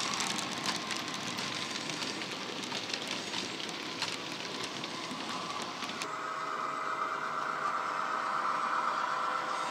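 Model railway wagons rolling past on the track with a rattle of small wheel clicks. About six seconds in the sound changes abruptly to a steady diesel engine drone from the locomotive's Loksound 5 sound decoder, played through its small sugarcube speaker.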